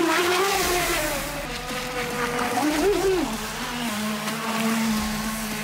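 RC jet boat's electric motor and jet pump running at speed, a whine whose pitch wavers up and down with the throttle, then holds steady from about halfway, over the hiss of water spray.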